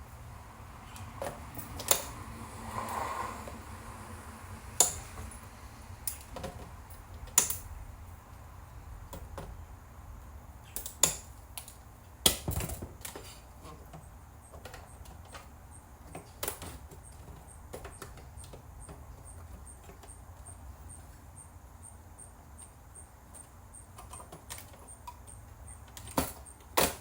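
Scattered clicks and knocks of plastic and metal VCR parts being handled and pried apart during disassembly, about a dozen irregular taps, over a low steady hum.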